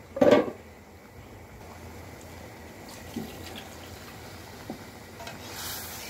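Water poured from a cup into a hot wok of curry, hissing as it hits the pan near the end. A short, loud clatter of a utensil against the wok comes at the very start.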